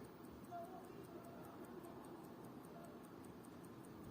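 Mechanical watch movement ticking faintly and steadily, about five ticks a second: the freshly serviced Longines 30L running.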